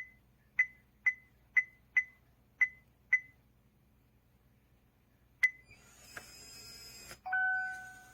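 eufy FamiLock S3 Max smart lock keypad beeping once per key press as an access code is entered, about two beeps a second, then a single confirming beep. The lock's motor then whirs for about a second as it unlocks, followed by a steady two-note tone.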